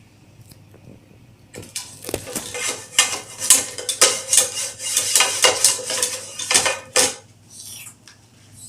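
A utensil clinking and scraping against metal cookware in quick, uneven strokes, starting about a second and a half in and stopping about seven seconds in, with the metal ringing faintly.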